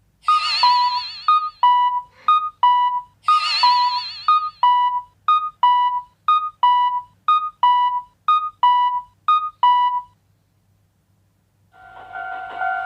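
Cartoon Japanese railroad crossing alarm, an electronic two-note 'kan-kan' ding, higher then lower, repeating about once a second. Wobbling trills sound over it at the start and again about three seconds in. It stops about ten seconds in, and a steady held tone begins near the end.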